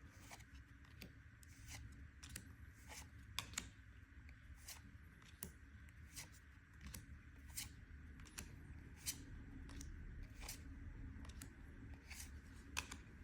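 Faint, irregular clicks and snaps of trading cards being flipped through one at a time, about one or two a second, over a steady low hum.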